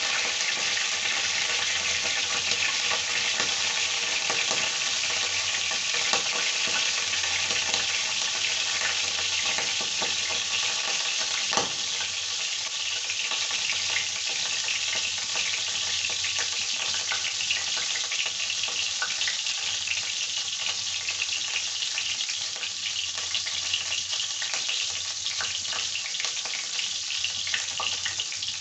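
Cooking oil heating in an iron kadai, sizzling with a steady hiss and scattered small crackles, as it gets hot for frying.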